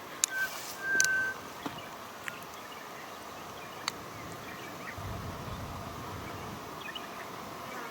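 Quiet outdoor ambience with birds calling: two short whistled notes near the start and faint chirps later. A brief low rumble comes about five seconds in, over a steady faint background.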